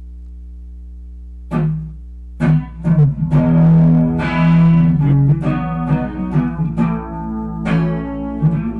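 Playback of a guitar recording that has been noise-reduced, normalized and compressed: plucked guitar notes and chords start about a second and a half in, over a steady low hum. The playback is hot enough to clip.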